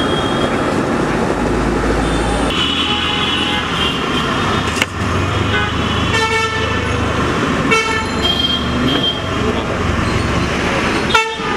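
Street traffic noise with vehicle horns honking several times, short toots over a steady rumble of engines and voices.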